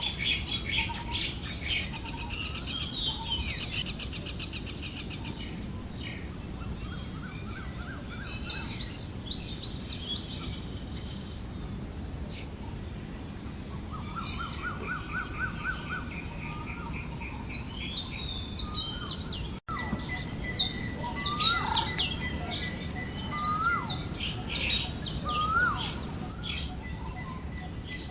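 Forest birds chirping, with scattered trills and short rising call notes, over a steady high-pitched hum and a soft low breeze. The sound cuts out for a split second about two-thirds through.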